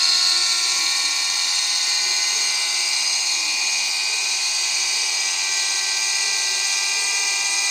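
A 12–96 V DC solar mixer grinder's motor running at full speed, powered directly from a 50 W solar panel. It gives a steady, high-pitched whine.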